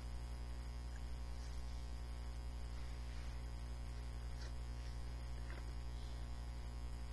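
Steady low electrical mains hum, with a few faint rustles as the board book's cardboard pages and fold-out flaps are handled.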